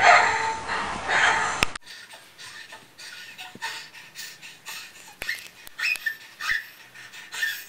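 Loud, fast, rasping breathing, in repeated gasps, that cuts off abruptly about two seconds in. It gives way to a much quieter stretch of scattered small clicks and faint brief chirps.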